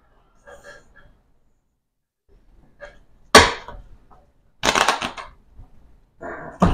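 A deck of playing cards being handled on a tabletop: one sharp card slap a little over three seconds in, the loudest sound, then a quick flurry of rapid card clicks about a second later and another short burst near the end.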